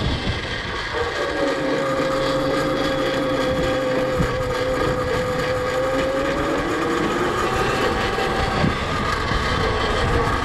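Custom electric pit bike with a QS Motor 2000 W mid-drive under way, its motor giving a steady high whine over rushing wind and tyre noise. The whine sets in about a second in and fades out a little past halfway.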